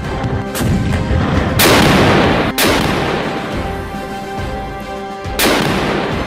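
Three heavy gunfire booms, the first two about a second apart and the third near the end, each with a long rumbling tail, mixed over dramatic background music.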